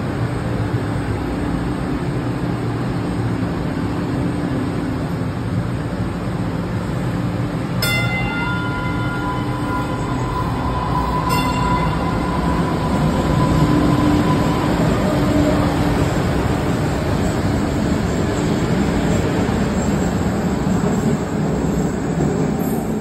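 MBTA Green Line light-rail car pulling out of an underground station, a steady rumble of wheels and motors. About eight seconds in, a motor whine rises and holds for several seconds. Two sharp clicks come a few seconds apart.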